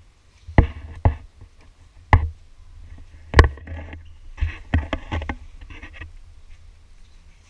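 Handling noise from the poolside camera being moved: four loud, sharp knocks in the first three and a half seconds with rubbing between them, then a quicker run of clicks and scrapes.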